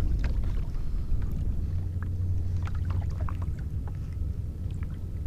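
Water lapping against a Hobie kayak's hull on choppy water: a steady low rumble with faint, scattered small ticks and slaps.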